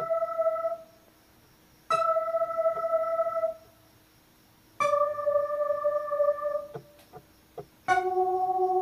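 Electronic keyboard playing a melody slowly, one key at a time: single held notes about three seconds apart, each sounding for about a second and a half, the later ones lower in pitch, with a few faint key clicks between them.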